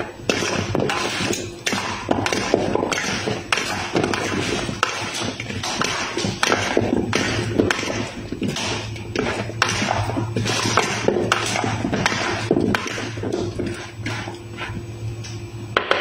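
Two metal forks scraping and tapping against a plastic bowl as chicken and vegetables are tossed together, in a steady run of short strokes about two a second.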